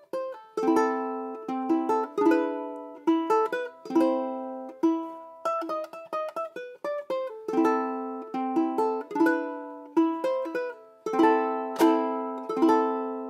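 Ohana BKT-70G ukulele, a baritone body with a tenor neck, spruce top and Aquila strings, played solo. Chords are picked note by note, each ringing out and fading before the next group.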